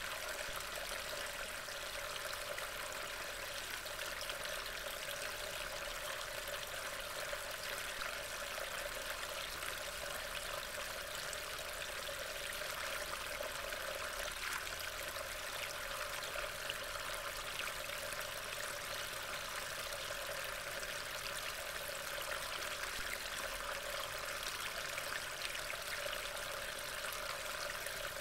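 Steady rain falling, an even hiss with no let-up, picked up by a trail camera's built-in microphone.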